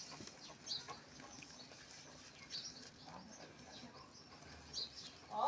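Hand pressing and crumbling dry, powdery soil, a faint soft crunching and rustling. Birds chirp at intervals over it, and a short louder call comes near the end.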